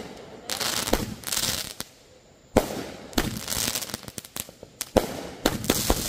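Consumer aerial fireworks going off: sharp bangs of bursting shells with long hissing stretches between them. A fast run of crackling reports starts near the end.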